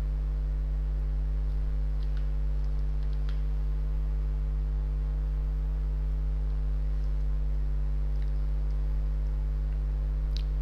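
Steady low electrical mains hum with its stacked overtones, with a few faint ticks.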